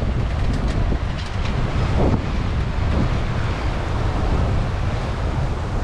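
Wind buffeting the microphone over the rush of waves and open water around a sailboat under sail, with a few brief splashes.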